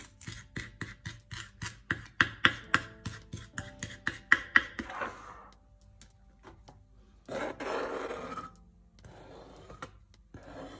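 Chef's knife chopping fresh dill on a cutting board, quick even chops about three to four a second. Then the blade scraping the chopped dill across the board into a glass bowl.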